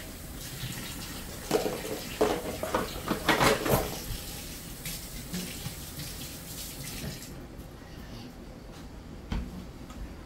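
Kitchen tap running into a sink, with splashing as something is rinsed under the stream, loudest between about one and a half and four seconds in. The water sound drops away about seven seconds in, and a single knock follows near the end.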